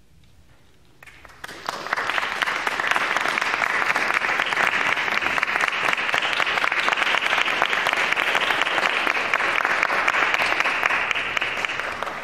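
Audience applauding after a moment of quiet, with the clapping breaking out about a second in and holding steady as a dense patter.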